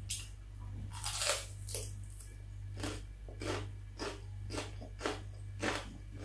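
Crunchy bites into a piece of raw red bell pepper, then crisp chewing at about two chews a second.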